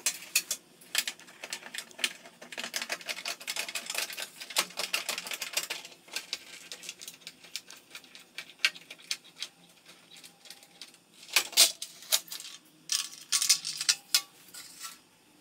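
Plastic diffuser cover of a ceiling fluorescent light fixture being pried and worked off by hand: quick irregular clicking, crackling and rattling of the plastic against the metal housing, with a few louder snaps near the end.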